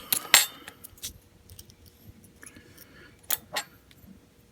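Small lock-cylinder pin parts clicking and clinking as they are handled and fitted together. A quick cluster of clinks comes first and is the loudest; a single click follows about a second in, then two close clicks a little past three seconds.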